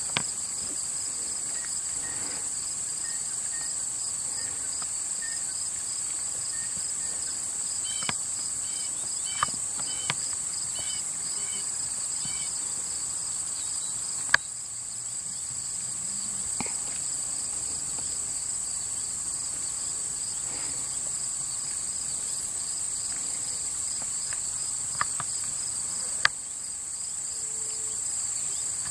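Steady insect chorus: a continuous high buzz with a rapidly pulsing trill beneath it. A few sharp clicks cut in, the loudest about midway and near the end.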